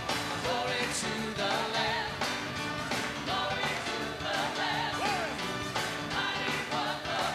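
Live worship music led on an electronic keyboard, with a steady beat and voices singing along.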